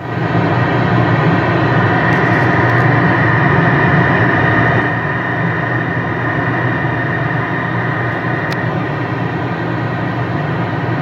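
A radio speaker carrying another station's keyed-up transmission with no voice on it: a loud, steady hiss over a low hum, starting with a click as the carrier comes in. The hum is the transformer buzz the listening operator hears on that station's amplified signal.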